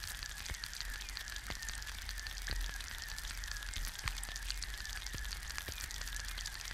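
An egg frying in hot fat in a pan: a steady sizzle made of dense small pops and crackles as the bubbles in the white burst, with a low hum underneath.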